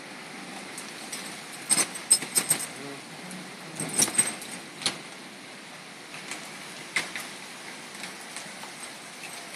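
A bunch of keys jangling and clinking in two short clusters, about two seconds in and again about four seconds in, then a few single clicks, as a key is worked against a beer bottle cap to pry it open.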